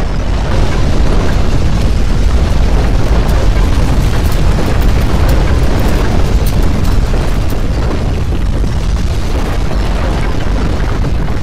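Earthquake rumble sound effect: a loud, continuous deep rumble with crackling and rattling, swelling about half a second in and easing slightly after the middle.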